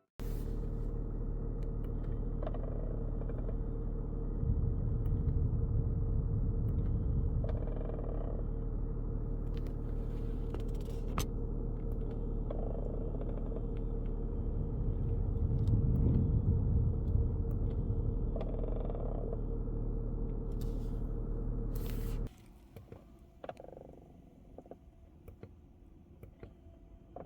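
Mazda CX-60 air-conditioning system with a short abnormal noise repeating about every five seconds over a steady running hum that holds a fixed tone. About 22 seconds in the hum cuts off abruptly, and the repeating noise carries on alone, quieter.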